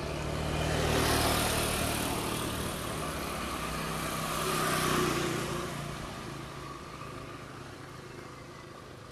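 Motorcycles passing close by on a road, the engine noise swelling as one goes by about a second in and another about five seconds in, then fading away.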